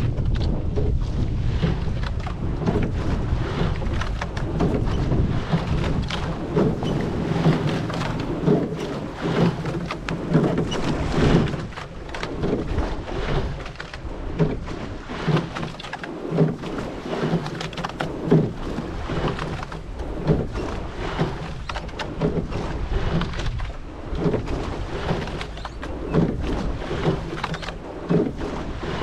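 Quad sculling boat being rowed: wind buffeting the microphone and water rushing past, with a regular knock at each stroke about every two seconds as the oars work in their oarlocks. The wind is strongest in the first half.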